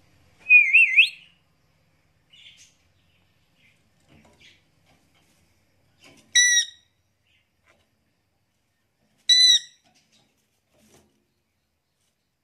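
Caged Indian ringneck parakeet: a wavering whistle about half a second in that rises sharply at its end, then two short, sharp calls about three seconds apart.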